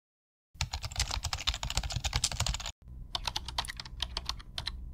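Fast typing on a computer keyboard: a dense run of key clicks, a brief break about halfway through, then more clicks that thin out toward the end.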